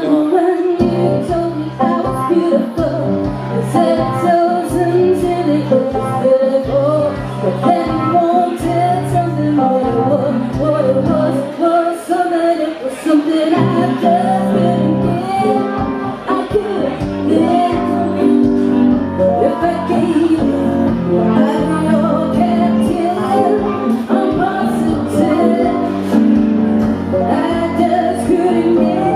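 Live duo performance: a woman singing lead, accompanied by her own playing on a Roland RD-700 stage piano and a strummed acoustic guitar.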